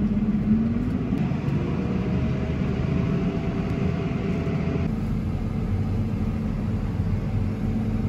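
Tractor engine running steadily, heard from inside its cab, with a brief rise in pitch about a second in.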